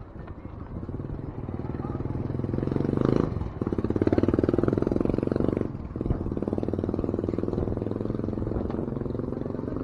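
A motor vehicle's engine running close by, louder between about three and six seconds in.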